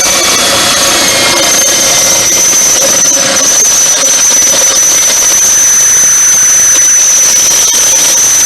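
Drill boring into a broken bolt in an exhaust manifold flange, its dull, worn-out bit giving a loud, steady high-pitched squeal over the drill's running noise. The squeal is the sign that the bit is toast.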